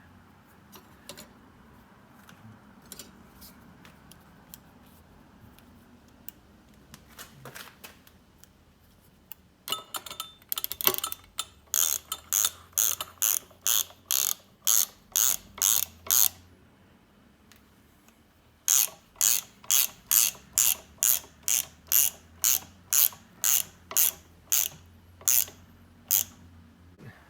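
Ratchet wrench clicking on its back-strokes in two runs of even clicks, about two or three a second with a short pause between, as it turns the screw that draws a new seal into an air compressor pump.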